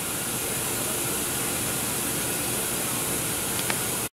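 Steady loud hiss with a faint low rumble underneath and a single small click near the end; it cuts off suddenly just before the end.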